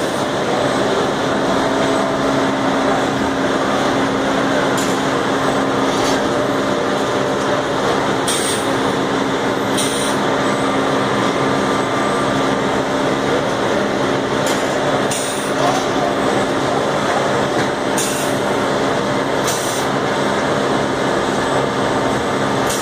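Automated brick-handling line in a ceramics plant running: a steady hum from the roller-conveyor drives and stacking machine. About eight short, high hisses break in at irregular moments.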